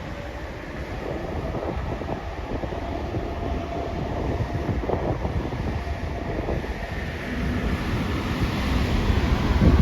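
Jet airliner engines droning and slowly growing louder as the plane passes, with wind buffeting the microphone and a loud gust hitting it at the very end.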